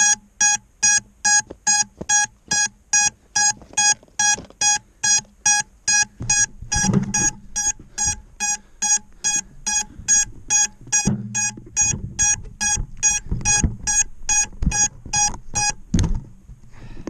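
Lost-model beeper on a crashed FPV racing quad sounding its locator alarm, a loud high beep about three times a second, with brush rustling beneath it. About sixteen seconds in there is a knock and the beeping stops as the quad is handled.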